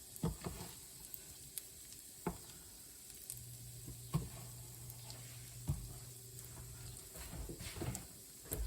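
Pancake frying in vegetable oil in a pan: a soft, steady sizzle, with a few light clicks.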